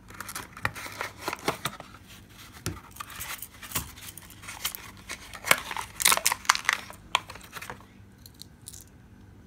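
Hands handling small plastic packaging and a cardboard gift box: a run of clicks, taps and rustling scrapes, busiest around six seconds in.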